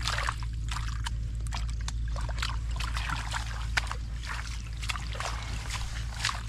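Irregular small splashes and squelches of hands and feet working in shallow muddy water while groping for fish, over a steady low rumble.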